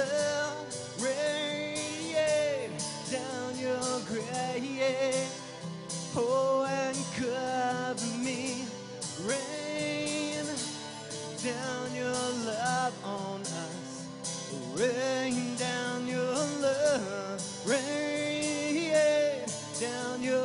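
Slow worship song played live: an acoustic guitar strummed steadily, with a man singing long, drawn-out lines.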